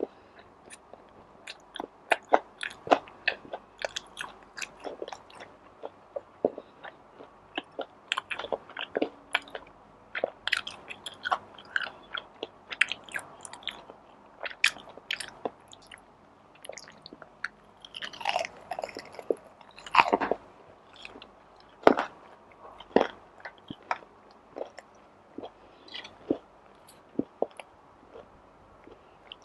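A person chewing and biting food, with many sharp, irregular crunching clicks throughout.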